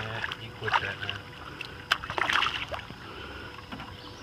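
A hooked fish thrashing and splashing at the water's surface as it is pulled up to the boat, in short bursts of splashing with a sharp knock about two seconds in.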